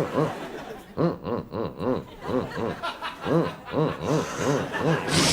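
A man's voice making a long run of rhythmic, laugh-like vocal syllables, about three a second, each rising and falling in pitch: a voiced sound effect.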